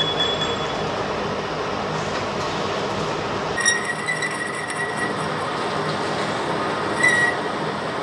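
Metal lathe running, turning a large metal disc. About halfway in, a boring tool starts cutting inside the disc's bore, adding a high steady tone, and the tone comes back briefly near the end.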